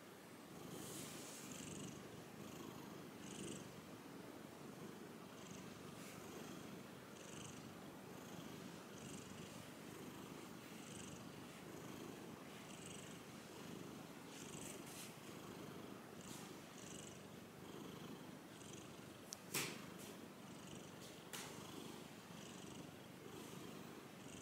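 Cat purring steadily and softly at close range. Two brief sharp clicks come near the end, the first the loudest sound.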